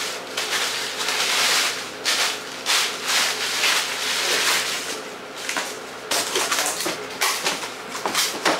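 Plastic bubble wrap rustling and crinkling in uneven bursts as a wrapped item is handled and pushed into a cardboard box, with cardboard flaps folded near the end.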